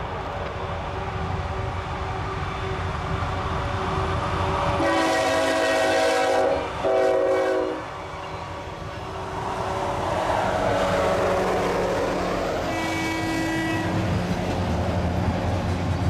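Norfolk Southern diesel locomotives passing at the head of a double-stack intermodal train, sounding a chime air horn: a long blast about five seconds in, a brief break, a second blast, and a shorter blast near the end. Under the horn the locomotives' engines go by, followed by the rumble and clatter of the stack cars' wheels.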